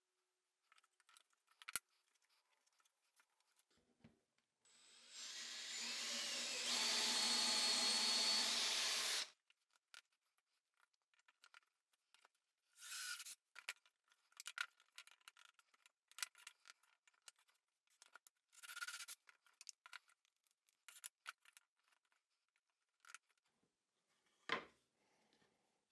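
Cordless drill running for about four seconds, boring a dowel hole through a doweling jig into pine, then two short bursts. Between them come light clicks and handling of tools and wood, and a single thump near the end as the boards are pressed together.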